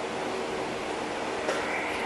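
Steady rushing background noise of a repair shop with a faint hum, and a faint click about a second and a half in.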